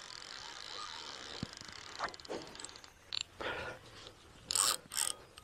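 Fishing reel's drag giving line in short rasping buzzes as a hooked carp pulls against the rod, the two loudest near the end.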